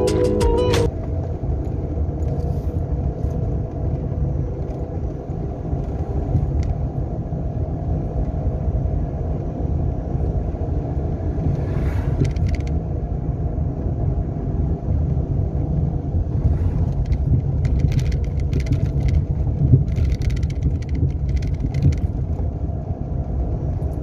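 Renault Sandero driving, heard from inside the cabin: a steady low rumble of engine and road noise, with scattered clicks and rattles in the second half.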